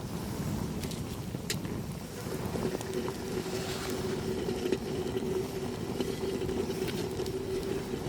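Wind buffeting the microphone with a steady low rumble and a few sharp clicks in the first two seconds. A steady hum joins it about two seconds in and holds.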